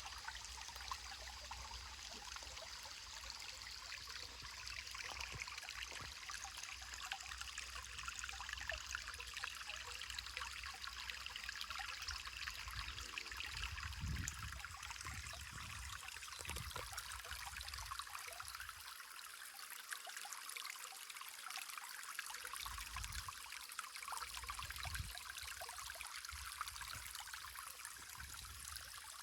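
Small waterfall running: a steady, even rush of falling water, with a low rumble that comes and goes.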